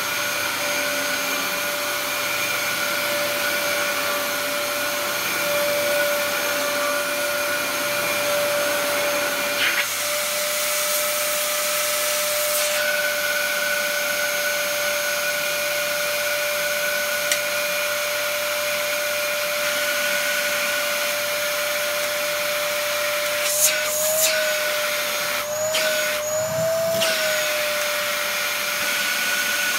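Dyson DC07 upright vacuum cleaner running and vacuuming a carpet, its motor giving a steady whine that sounds healthy, with no screech. Near the end there are a few knocks and the whine wavers briefly.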